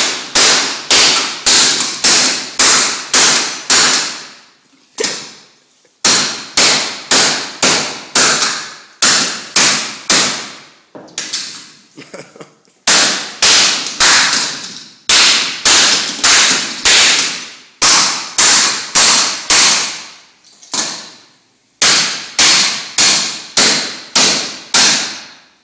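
Hammer blows on hard disk drives, smashing their metal casings: sharp ringing clanks, about two a second, in runs broken by a few short pauses.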